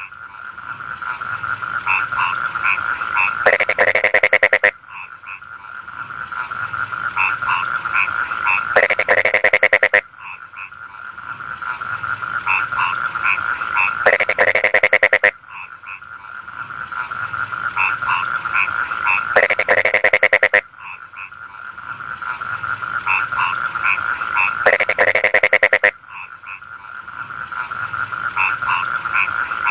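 Chorus of rice-field frogs croaking over a steady high trill, with a loud burst of rapid croaking about every five seconds.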